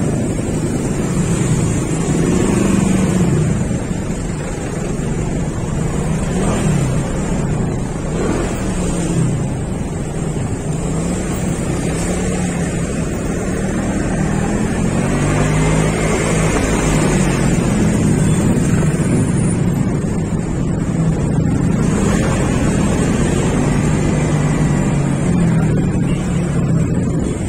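Motorcycle engine running while riding, its pitch rising and falling repeatedly with the throttle, with wind noise on the microphone.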